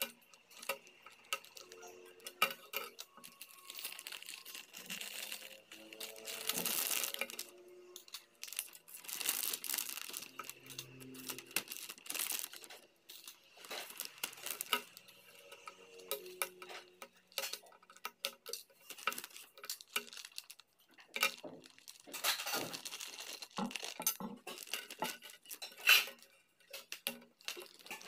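Small plastic robot-kit parts clicking and clinking as they are handled and pulled apart, with a plastic bag crinkling now and then.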